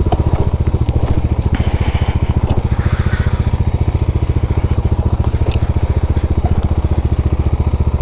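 Motorcycle engine running steadily at low revs in an even pulse while the bike is eased down a steep rocky trail, with scattered clicks and crunches of stones under the tyres.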